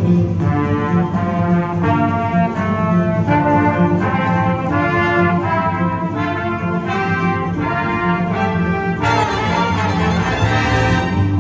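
Marching band brass playing a run of short, repeated chords about twice a second over a steady low bass. About nine seconds in they swell into a louder, fuller held chord.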